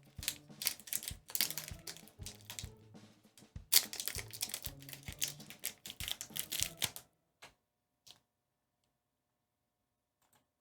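Foil booster-pack wrapper crinkling and crackling in quick, dense clicks as the pack is handled and opened, stopping abruptly about seven seconds in.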